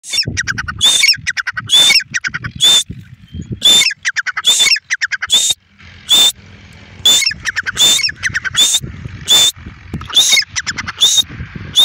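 Grey francolin calling loudly: runs of quick clicking notes between high, shrill calls repeated about once a second, with a brief pause midway.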